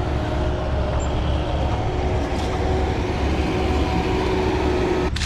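An engine running steadily: a low drone with a faint hum above it. It cuts off abruptly just before the end.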